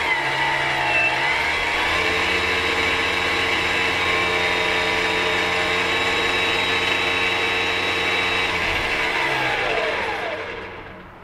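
Keda 56-63 brushless outrunner motor and its exposed gearbox running a propeller in air, with a steady whine, loaded by a cloth held against the spinning motor bell. The pitch dips briefly about a second in, then holds steady, and near the end falls away as the power is cut and the motor spins down.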